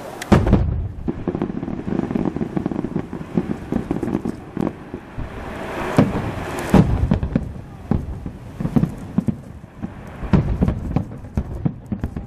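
Aerial fireworks going off in quick succession: repeated booms and sharp bangs with crackling between them. A heavy boom comes just after the start, and the loudest bangs cluster around six to seven seconds in.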